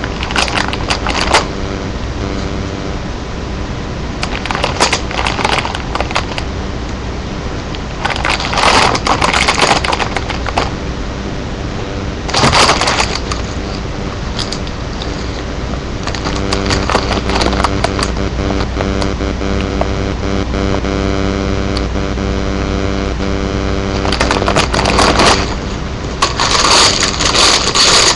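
A Siamese cat at a bag of Doritos: bursts of crackling and crunching every few seconds, over a steady hum.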